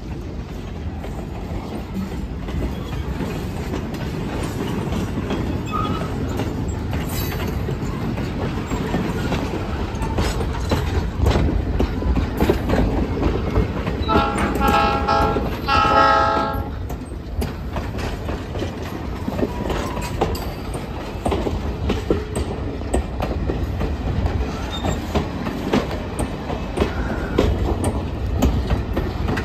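Passenger train rolling past at close range: a steady rumble of steel wheels on the rails with clicks over the rail joints. About halfway through, a locomotive horn sounds two blasts.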